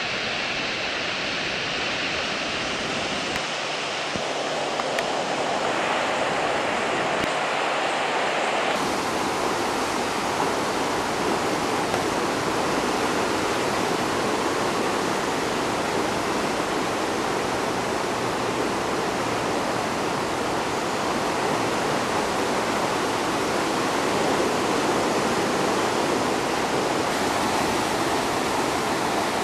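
Fast floodwater rushing in a swollen river, a steady, even roar of moving water that fills out a little about nine seconds in.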